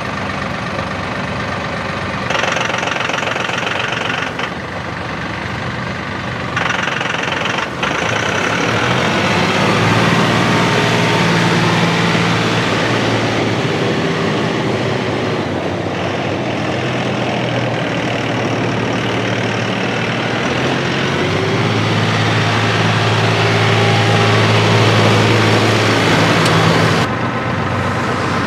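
Three-cylinder turbo diesel engine of a Massey Ferguson 2607H tractor running. Its engine note changes in steps several times and builds louder from about ten seconds in, then drops sharply near the end.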